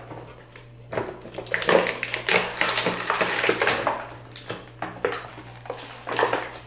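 Clear plastic blister packaging crinkling and crackling as small toy figures are worked out of it, followed by a few sharp plastic clicks.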